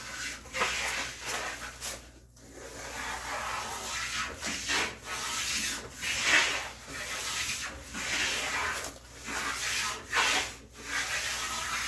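Combination plane taking repeated strokes along a board's edge, roughly one a second, shaving wood as it goes back over a groove cut.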